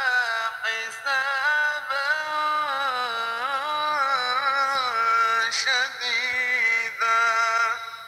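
A solo voice chanting a melodic line, with long held notes and ornamented turns in pitch, fading out near the end.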